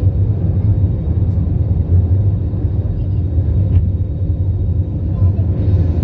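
Steady low rumble of jet engines and rushing air inside an airliner's cabin as it climbs after takeoff. A little more hiss comes in near the end.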